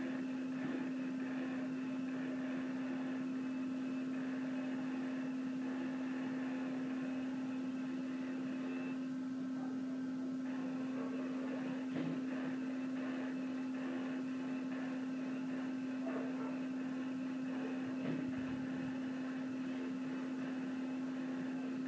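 A steady low electrical hum at one unchanging pitch, over faint room noise, with a few soft taps about twelve, sixteen and eighteen seconds in.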